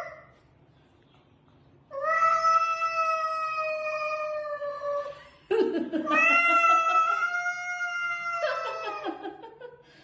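Domestic cat yowling: two long drawn-out caterwauls, the first held for about three seconds with a slowly falling pitch, the second starting rough about five seconds in and then held for about four seconds.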